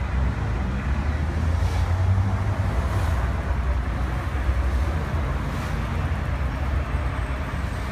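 Street traffic: cars passing close by over a steady low road rumble, with a few brief whooshes as vehicles go by.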